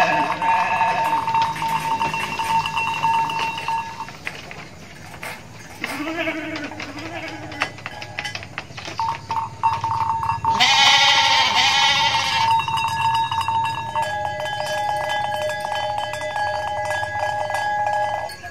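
Goats bleating: a call at the start, a lower one about six seconds in, and a long, wavering, high bleat around eleven seconds. Steady held tones hum underneath.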